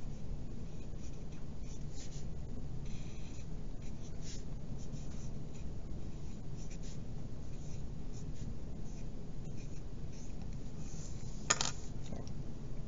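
Wooden pencil writing on paper: faint, scattered scratching strokes, then one sharp tap near the end as the pencil is set down on the desk.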